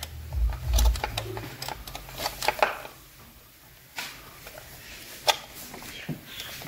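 Scattered light clicks and metallic taps of hand tools working on an engine. A low mechanical rumble stops about a second in.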